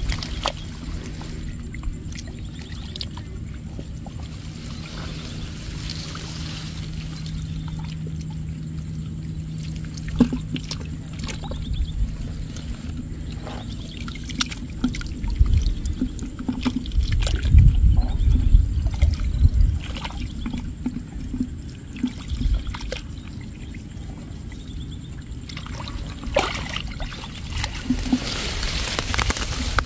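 Wet mud and muddy water sloshing and squelching as gloved hands grope through a drying pond bed for fish, louder for a few seconds a little past the middle.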